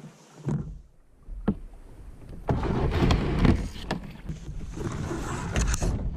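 Kayak hull scraping and grinding over gravel as it is dragged up the bank by its bow handle, with reeds brushing along its sides. A few light knocks come first, and the dragging grows louder about two and a half seconds in.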